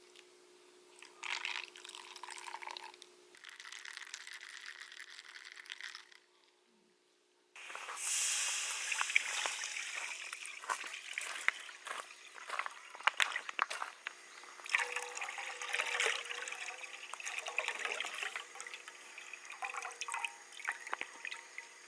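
Water running and splashing, with many small clicks and knocks over it. A brief near-silence comes about six seconds in, and the sound then returns louder.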